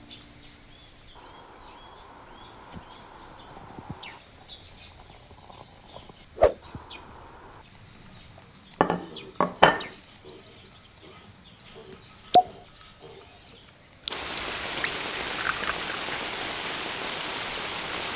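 Outdoor rural ambience: a steady high insect drone that cuts in and out abruptly between clips, with a few short sharp sounds. After about fourteen seconds it gives way to a steady hiss.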